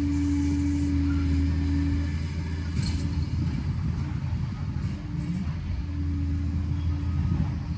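Liebherr PR 746 crawler dozer's diesel engine running with a steady low hum. About two seconds in, the steady tone gives way to a rougher, uneven rumble, and it settles back toward the steady hum near the end.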